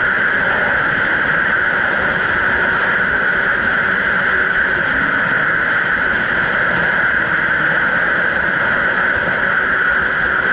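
Jet ski running at a steady cruising speed: an even engine and water-jet drone with the rush of spray from the wake, holding the same pitch and level throughout.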